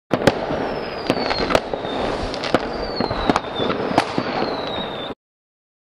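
Logo-intro sound effect: a dense crackling rush broken by sharp cracks, with three high whistles that each slide slowly downward. It cuts off suddenly about five seconds in.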